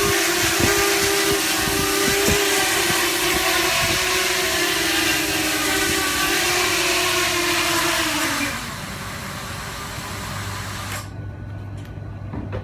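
Scorpion Sky Strider 280 quadcopter's motors and propellers hovering with a steady whine and rushing prop wash. The whine sags and falls away as the quad settles onto the floor about eight seconds in, and the remaining motor noise cuts off suddenly about eleven seconds in.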